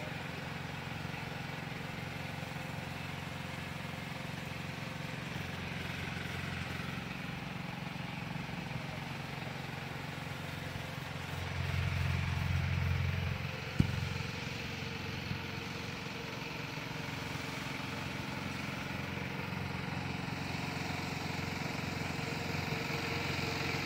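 Engine of the tractor that tows a beach-cleaning machine, running steadily with a low hum. It grows a little louder about halfway through, and there is a single sharp click just after.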